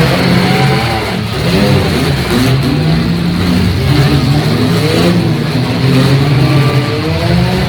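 Several demolition derby cars' engines revving hard together, their pitches rising and falling and overlapping.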